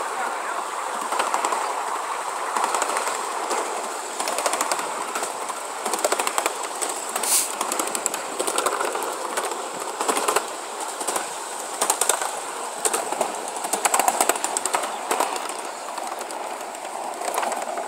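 Wheels of a 1-inch-scale ride-on miniature train rolling along the track with a steady rumble, clicking and clattering irregularly over rail joints and switches.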